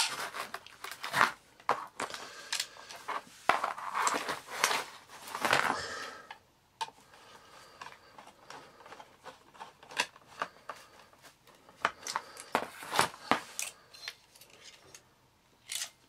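Screws being turned in with a hand screwdriver on a Hoover Junior vacuum cleaner's motor housing, with the parts handled on cardboard: clicks, scrapes and taps of metal and plastic, busy for the first six seconds, then scattered sharp clicks.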